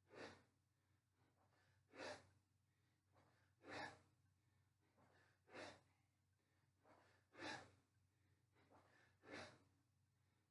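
A man breathing out hard during sit-ups, one short exhale with each rep, about every two seconds, six in all.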